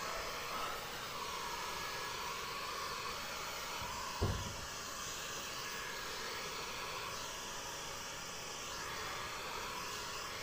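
Heat gun running steadily, a continuous hot-air hiss, while tint film is heat-shrunk onto a car's curved rear windshield. A brief knock about four seconds in.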